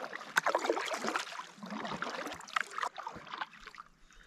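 Kayak paddle blades dipping and splashing in calm lake water, with water trickling off the blades, dying away near the end.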